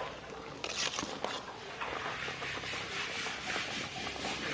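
Metal ladle stirring in a pot of boiling water, scraping and knocking lightly against the metal pot over the bubbling of the boil.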